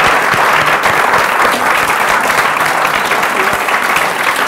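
Audience applauding: many people clapping together in a loud, steady, dense patter.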